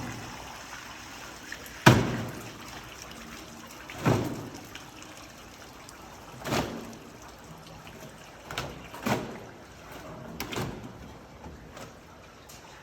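Sutlick AIW 100 washing machine running, with a knock about every two seconds or so and water trickling between the knocks.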